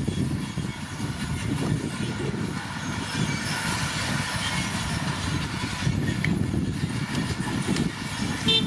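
Komatsu D41P crawler bulldozer working: diesel engine running under load while its steel tracks clatter steadily. A short high toot sounds near the end.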